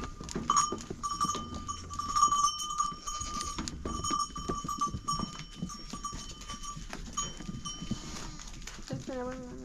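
Bells on a flock of sheep clanking and ringing with many small knocks, then a sheep bleating once near the end.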